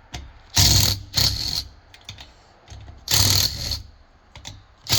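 Three short bursts of rattling and scraping as air compressor pump parts are handled, with a few light clicks between them.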